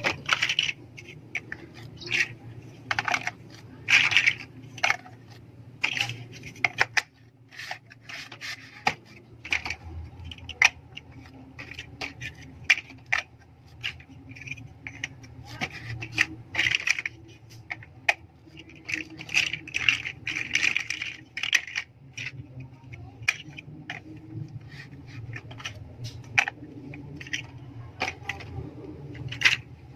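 Plastic LEGO bricks being handled and snapped together: irregular sharp clicks and short rattling bursts, over a faint low hum.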